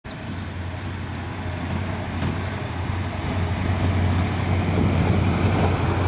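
Steady low rumble of road traffic, slowly growing louder.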